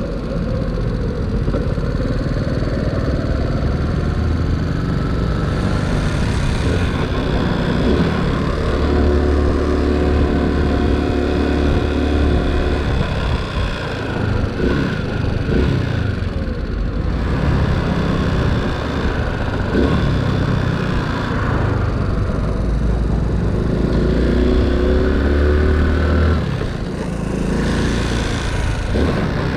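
Small single-cylinder engine of a Honda C90 step-through motorcycle under way, its note held steady in stretches and rising and falling with the throttle, with steady wind noise.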